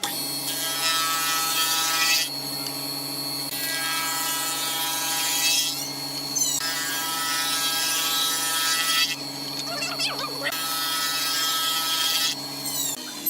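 Electric woodworking power tool running with a steady motor whine, cutting into wood in four passes that each bring a loud rasping hiss for two to three seconds. The motor winds down near the end.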